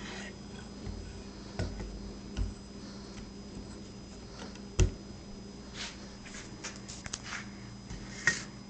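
Handling noise of a pistol being turned over in the hand close to the microphone: a few sharp knocks, the loudest about five seconds in, and scattered light clicks later on.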